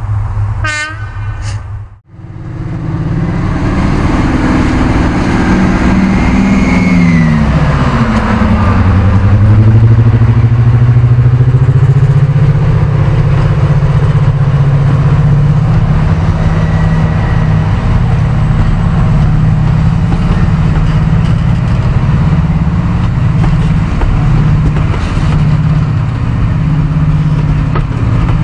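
Sound-decoder recording of a Class 55 Deltic's Napier Deltic engines starting up, played through the model locomotive's small speaker: the engine note sweeps down and settles to a steady diesel idle. A short run of clicks comes just before the start-up.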